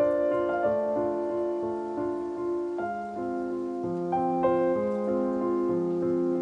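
Background piano music: sustained notes and chords changing every second or so.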